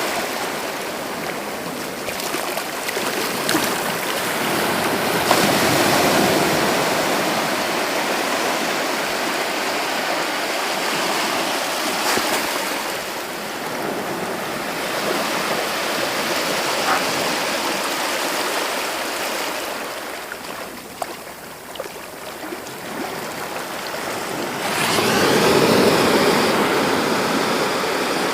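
Sea waves breaking on a beach, surf washing in and out in a continuous rush. Waves break louder about five seconds in and again near the end.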